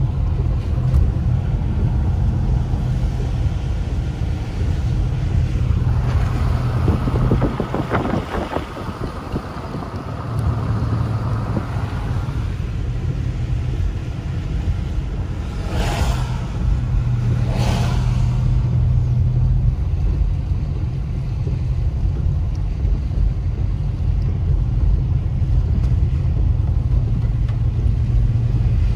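Steady low rumble of a car's engine and tyres on a wet road, heard inside the cabin. A few seconds in comes a stretch of hiss, and a little past halfway two short swishes about two seconds apart.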